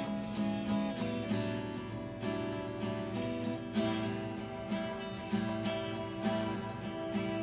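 Background music: a strummed acoustic guitar playing a steady, rhythmic tune.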